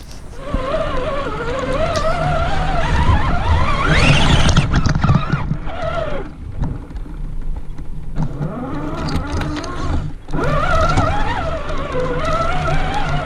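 Traxxas Summit's brushed electric motor and geartrain whining, the pitch rising and falling with the throttle. It climbs steeply about four seconds in and cuts out briefly twice, over a low rumble from the truck driving over rough ground.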